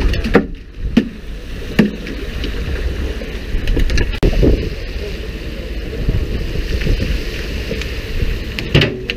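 Wind and water noise on a small open fishing boat at sea. Three sharp knocks come in the first two seconds, and a few more clicks near the end.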